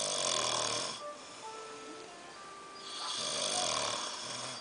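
A person snoring: two long snores about three seconds apart, the first fading out about a second in and the second rising about three seconds in and ending near the end.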